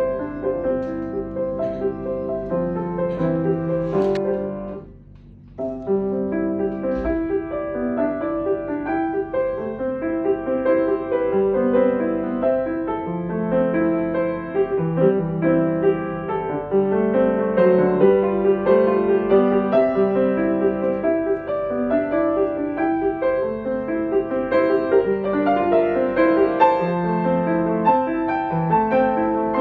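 Background piano music, slow held notes, with a brief drop in level about five seconds in.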